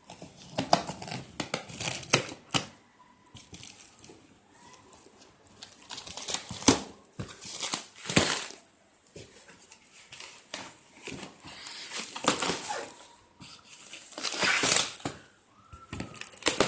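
Cardboard shipping box being torn open by hand: irregular rips and crinkling of the cardboard and its packing, in short separate bursts.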